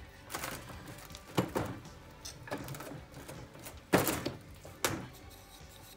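Irregular sharp metal clicks and knocks as a two-stroke outboard's crankshaft is shifted and worked on in its crankcase half. There are about seven knocks, the loudest about four seconds in.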